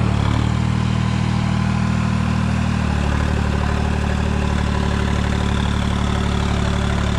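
New Holland 3630 tractor's diesel engine running steadily at about 1500 rpm in low first gear, driving a super seeder. Its low note changes about three seconds in.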